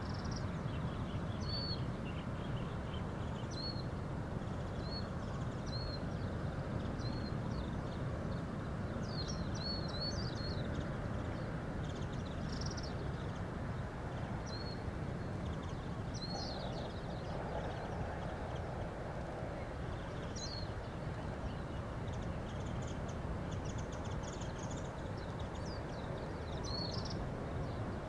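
Birds giving short, high chirps, some in quick runs of two or three, over a steady low outdoor background noise.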